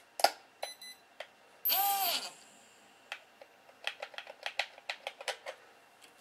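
Plastic clicking and tapping of a small toy-drone transmitter being handled, a run of quick, irregular clicks in the later half like switches and sticks being worked. A brief electronic beep comes just under a second in, and a short vocal sound about two seconds in.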